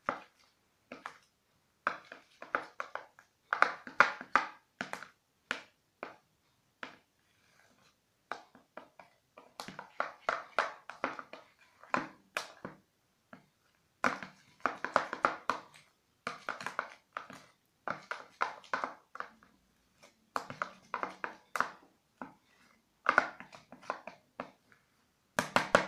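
Metal spoon stirring shaving foam and white glue in a plastic bowl: quick scraping clicks against the bowl in bursts of a second or two, with short pauses between.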